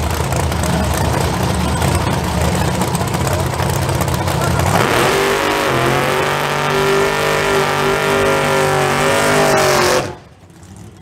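Mopar muscle car's V8 running rough and loud at the drag strip. About five seconds in, it is revved up and held at high rpm with a steady, even engine note, as in a burnout. Near the end it cuts off suddenly as the throttle is released.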